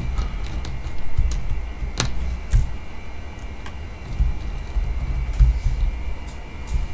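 Hands rummaging through small clear plastic model-kit parts on a desk mat: low rubbing and handling noise with a few sharp plastic clicks, the sharpest about two seconds in.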